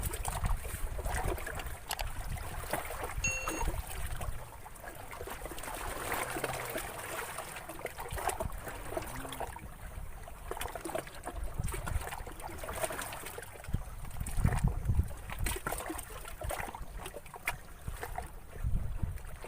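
Water lapping and trickling, with many small clicks and irregular low rumbling gusts, like wind on the microphone.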